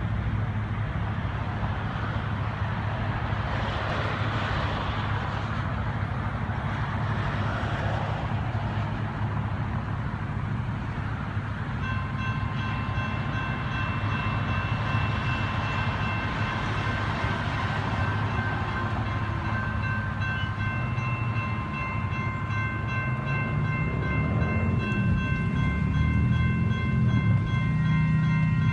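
Road traffic, then from about 12 seconds in a railroad crossing's General Signals Type 2 electronic bells start ringing steadily, with a second bell joining about 20 seconds in. Near the end a low rising and falling hum comes from an approaching CAF light rail train.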